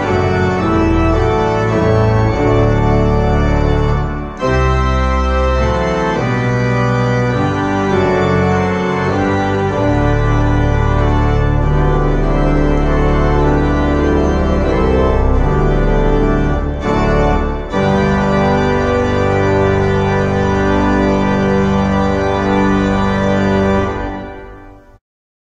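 Church organ playing sustained chords over a pedal bass, with short breaks between phrases about four seconds in and again around seventeen seconds. The last chord dies away near the end.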